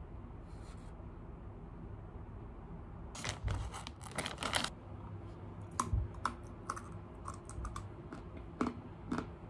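Plastic snack bag of mixed nuts crinkling as a hand reaches into it about three seconds in, followed by a string of short, sharp clicks, over a steady low hum.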